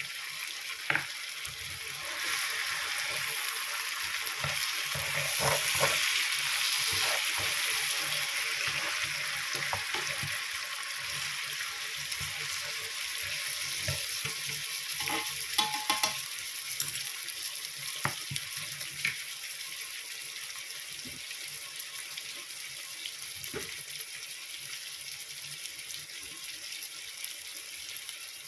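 Food sizzling as it is stir-fried in a hot pan, with scattered clicks and scrapes of the cooking utensil against the pan. The sizzle is loudest in the first third and eases off after that.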